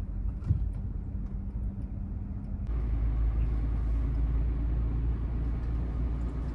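Low road and engine rumble heard inside a moving car's cabin, stepping up louder about two and a half seconds in.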